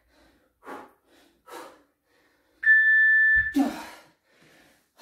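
Hard, rhythmic breathing through push-ups, one breath roughly every second, then a single long electronic interval-timer beep about two and a half seconds in, marking the end of the final work interval, followed at once by a loud gasping exhale.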